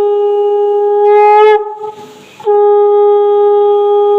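Conch shell (shankha) blown in long steady blasts. The first blast ends with a slight upward bend about one and a half seconds in, and after a brief pause for breath a new blast starts about two and a half seconds in.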